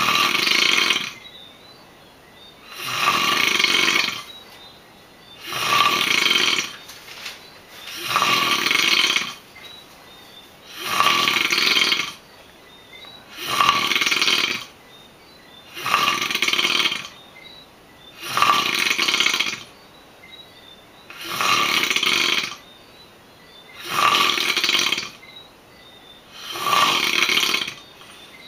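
Snoring in a steady rhythm: a rasping snore about every two and a half seconds, eleven in all, with quiet breaths between.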